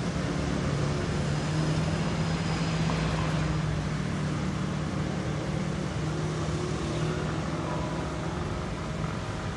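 A machine running: a steady low hum over an even rushing noise.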